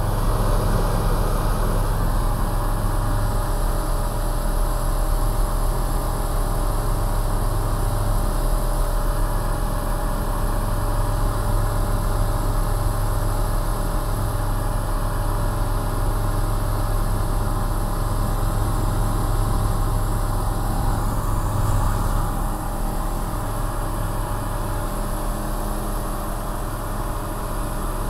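Steady drone of a single-engine light aircraft's engine and propeller in flight at reduced climb power, heard inside the cockpit. It eases slightly about three-quarters of the way through.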